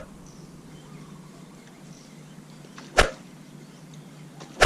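Two short, sharp impacts, one about three seconds in and another right at the end, over a faint steady background.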